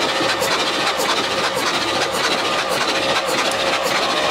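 Starter cranking the 396 big-block V8 of a 1969 Chevrolet Camaro for a wet compression test, the engine turning over without firing. There is a regular pulse about twice a second.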